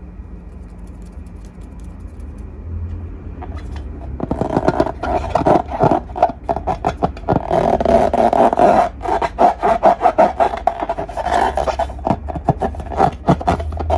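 Slime and balloons being handled in close-up ASMR: after a low hum, a dense, irregular run of sticky crackling and rubbing starts about four seconds in and keeps on.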